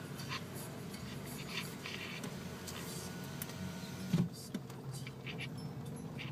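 Heavy rain falling on a car's roof and windscreen, heard from inside the car: a steady hiss with scattered sharp drop ticks, and a dull thump about four seconds in.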